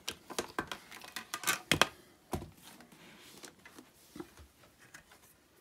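Hard plastic clicks, taps and light rattling as a Shoei NXR motorcycle helmet and its visor parts are handled. The sharpest clicks come in the first two and a half seconds, followed by fainter ticks and rustling.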